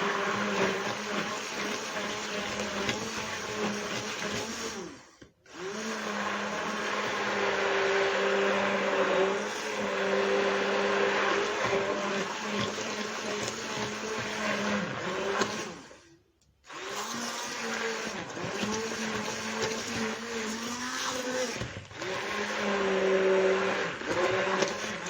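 Hand blender running in a mixture of warm milk, sugar and cocoa, its motor hum wavering slightly in pitch as it churns. It is switched off briefly twice, about five seconds in and again about sixteen seconds in.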